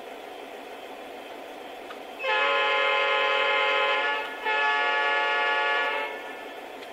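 Lionel Legacy SD70ACE model locomotive's onboard sound system: a steady recorded diesel engine hum, then two long blasts of its recorded Nathan P5 multi-chime horn, the usual two-blast signal before a diesel moves off.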